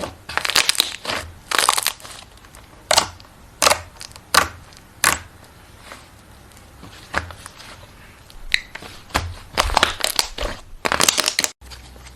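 Slime being squeezed and pressed by hand: about a dozen short, sharp bursts of sound at irregular intervals, with a sudden brief break near the end.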